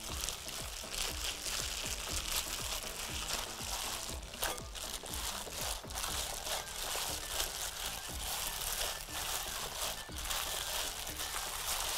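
Thin plastic bag crinkling and rustling in quick, irregular crackles as raw chicken pieces are squeezed and turned inside it to coat them in marinade, with background music underneath.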